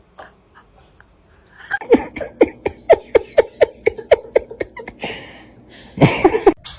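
A person laughing hard: a rapid run of short "ha" pulses, about four or five a second, starting about two seconds in and lasting about three seconds, then another short burst of laughter near the end.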